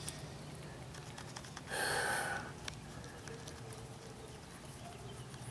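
Faint small clicks and a short scraping rustle about two seconds in, from a flathead screwdriver and fingers working plastic fuel-line retainer clips out of a fuel filter fitting, over a steady low hum.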